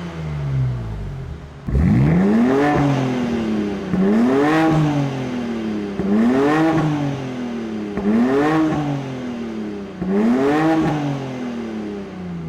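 BMW S58 twin-turbo straight-six breathing through a Ragazzon stainless-steel exhaust, revved repeatedly: about five throttle blips roughly two seconds apart, each rising quickly in pitch and falling back.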